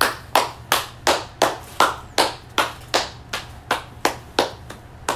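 A person clapping their hands: about fifteen sharp claps at a steady, even pace, nearly three a second.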